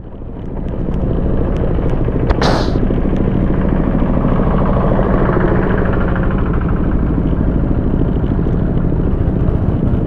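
Honda ADV scooter's engine running under way on a rough dirt road, with steady road rumble, picking up over the first second. A short hiss comes about two and a half seconds in.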